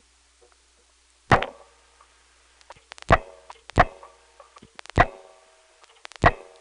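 Sharp clicks on an analog telephone line, five at irregular intervals, each followed by a short ringing tone. They are a rotary dial's pulses heard in the handset while the line is stuck on a trunk.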